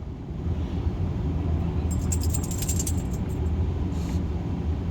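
Steady low rumble of a car's cabin on the move. About two seconds in comes a metallic jingling of keys that lasts about a second and a half.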